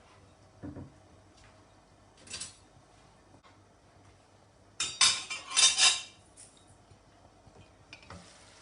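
Metal cookware clattering: a couple of faint knocks, then a loud flurry of clinks and scrapes about five seconds in, as a lid and spoon are handled against a cooking pan.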